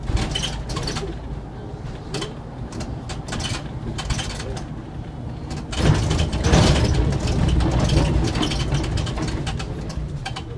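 Cab of a SOR NB city bus on the move: steady low road and drivetrain rumble with frequent interior rattles and clicks. About six seconds in it turns louder and rougher as the wheels run over cobblestones, then eases off near the end.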